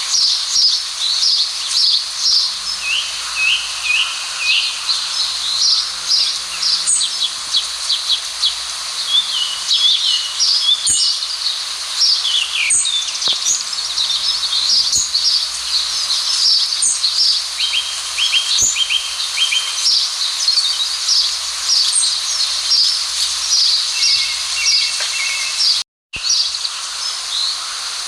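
A dense chorus of many birds chirping and twittering in quick, high calls over a steady hiss, broken by a brief dropout near the end.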